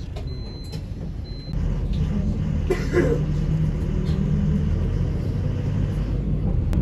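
City bus engine running, heard from inside the passenger cabin as a steady low rumble that grows louder about one and a half seconds in. A high electronic beep repeats a few times during the first second and a half.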